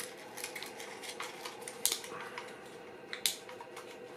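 Small clicks, taps and scrapes of a 35mm panoramic film camera and its film being handled while the film leader is threaded under the rollers and sprocket, with sharper clicks about two seconds and three seconds in, over a faint steady hum.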